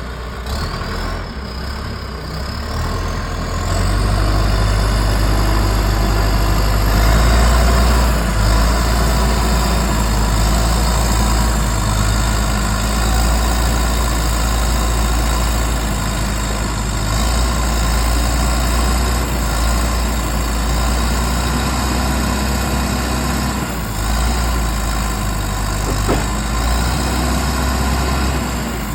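2008 John Deere 310J loader backhoe's four-cylinder diesel engine running, getting louder about four seconds in and then running steadily under throttle. A faint high whine rises in pitch during the first few seconds.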